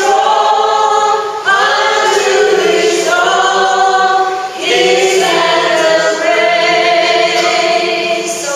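A small group of voices singing a worship song together without instruments, in long held lines. Short breaths between phrases come about a second and a half in and again past four and a half seconds.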